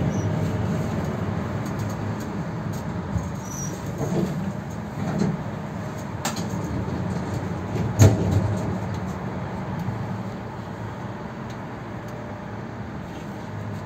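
Konstal 105Na tram running on the rails: a steady low rumble with a few sharp knocks from the wheels and track, the loudest about eight seconds in, growing quieter over the last few seconds.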